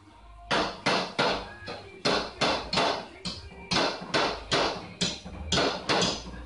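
Paintless dent repair tools tapping on car body sheet metal: a run of sharp metallic taps, about three a second, starting about half a second in.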